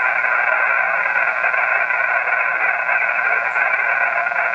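Steady hiss of band noise from an HF amateur radio transceiver's speaker, in single-sideband voice mode, heard through a narrow voice-width band. No signal comes through it: the calling station has dropped out into the noise.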